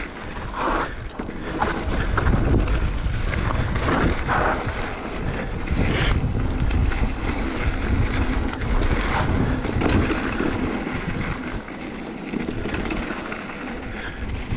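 Wind buffeting the microphone over the rumble of an electric mountain bike's knobby tyres rolling on a dirt trail, with a few sharp clacks from the bike jolting over bumps.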